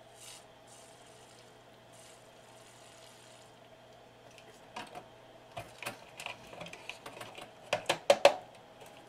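A few faint, short hisses of Deoxit contact-cleaner spray on the receiver's board-to-board audio connector, then a run of light, irregular clicks and taps as the circuit boards and connector are handled, the loudest clicks near the end, over a faint steady hum.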